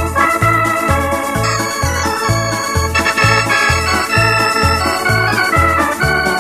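Instrumental electronic organ music: sustained chords and a melody line over a steady bass that pulses about twice a second.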